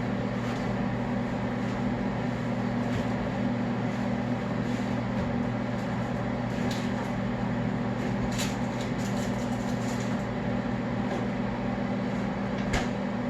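Microwave oven running with a steady, even hum, with a few light knocks over it.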